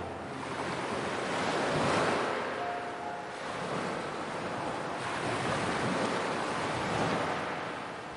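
Ocean surf: a steady rushing of waves washing in, swelling about two seconds in and again near the end before easing off.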